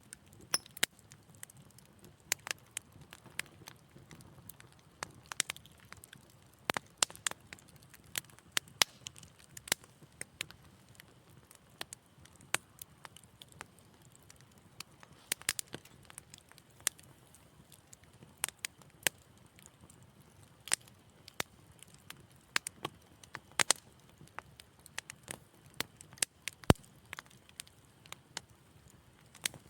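Wood fire in a fireplace crackling, with frequent sharp, irregular pops and snaps over a soft low hiss of burning.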